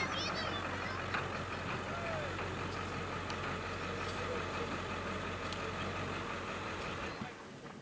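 A steady engine hum, like a motor vehicle running nearby, that stops about seven seconds in.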